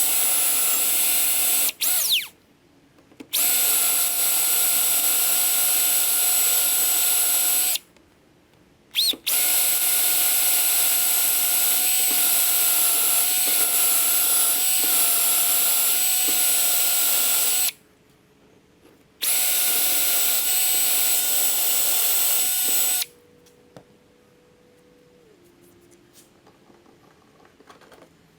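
Electric drill running at speed with a steady high whine, stopped and restarted several times in long pulls of a few seconds each with a couple of brief blips between, as it bores a finger hole through a homemade hardboard-and-pine table saw insert. It falls quiet for the last few seconds.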